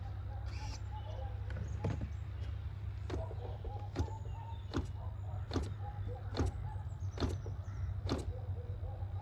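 Sharp clicks repeating about once every 0.8 s: the propeller of an MVVS model glow engine being flicked over by hand to draw fuel through the carburettor before starting, over a steady low hum.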